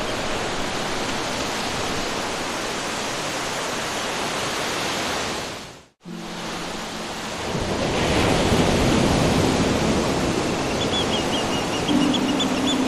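Steady sea-wave noise that fades out to silence about halfway through. A new ambient track then fades in: a rushing water-like noise with low held music notes, and near the end a run of short high chirping notes.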